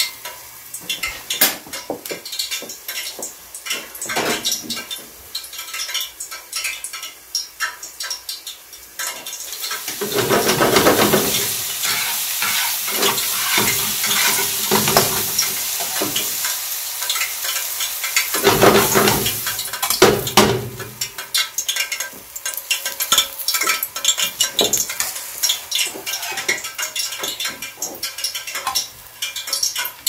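Shredded-potato pancake frying in oil in a nonstick pan: a steady sizzle, louder for several seconds from about ten seconds in, with a spatula scraping and tapping against the pan.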